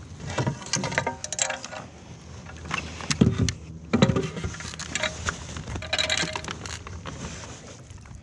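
Irregular knocks, clicks and rattles of fishing gear handled aboard a kayak, with a few louder thumps in the middle.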